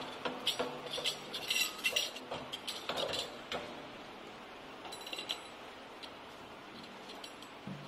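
Light metallic clinks and taps as a chrome basin tap is handled against a stainless steel sink: a quick run of them in the first few seconds, a few more about five seconds in.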